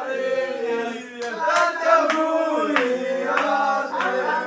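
Several male voices singing a chant together, joined by a handful of sharp handclaps from about a second in.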